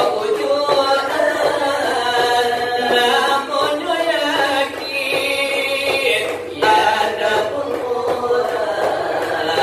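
Salawat dulang: voices chanting a Minangkabau devotional Islamic song together in long, winding melodic lines, with a brief break between phrases about six and a half seconds in.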